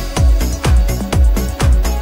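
Background music with a steady electronic dance beat, a bass kick drum about twice a second.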